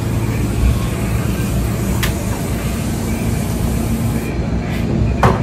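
Steady low rumble and hum of diner room noise, with a sharp click about two seconds in and a louder short clatter near the end.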